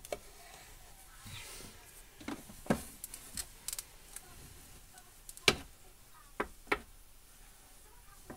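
Scattered light clicks and taps of plastic dolls and dollhouse parts being handled, with a few sharper knocks, the loudest about five and a half seconds in.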